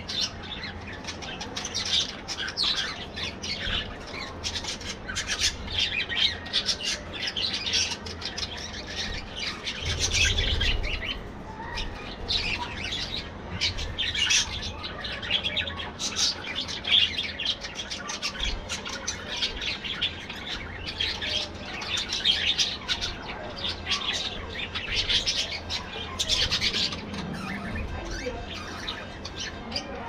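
A flock of budgerigars chattering and chirping without pause, many short calls overlapping.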